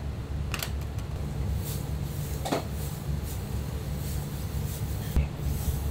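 A steady low hum with a few light clicks and knocks scattered through it.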